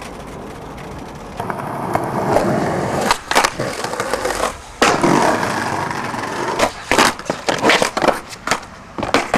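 Skateboard wheels rolling over brick paving and concrete. Sharp clacks follow several times in the second half as the board hits a concrete ledge and the ground.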